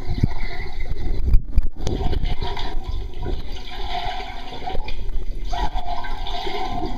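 Pool water heard through a submerged camera: a loud, muffled rushing and gurgling of moving water and bubbles as a child swims along the bottom. A muffled humming tone comes in about four seconds in and again near the end.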